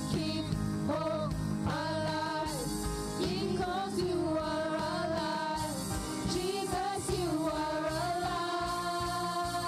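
Live praise and worship song: a woman and a man singing into microphones, with a band backing them.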